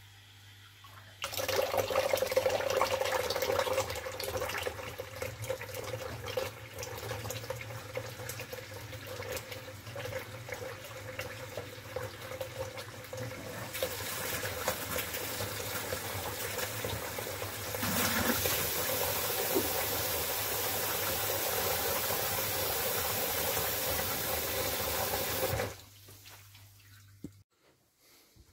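Kitchen mixer faucet opened and running into the sink, spluttering loudly and unevenly at first, then running steadier and louder in steps before it is shut off near the end. The tap is open to bleed trapped air out of the hot-water pipes of a newly installed electric water heater.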